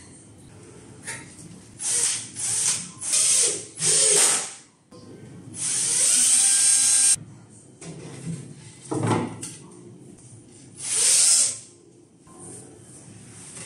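Cordless drill-driver driving screws into the board side of a shelf unit in several short runs, with one longer run in the middle whose motor pitch rises as it spins up.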